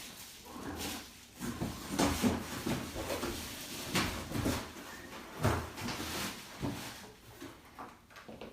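Cardboard packaging being handled and pulled open: irregular scrapes, rustles and knocks.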